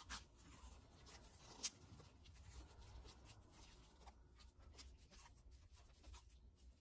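Faint rubbing and scratching of electrical tape being unrolled and wrapped around a motor-start capacitor by gloved hands, with a short, sharper click about a second and a half in.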